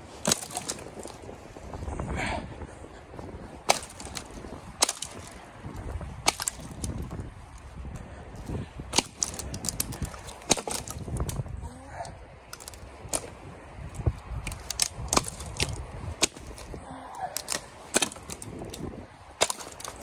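Dry dead twigs and branches snapping with sharp, irregular cracks, more than a dozen of them, over rustling and crunching of brush and thin snow.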